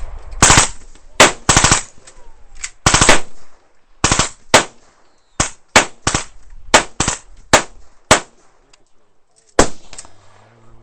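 Suppressed HK MP5/40 submachine gun in .40 S&W firing several short full-auto bursts, followed by a string of single shots roughly half a second to a second apart.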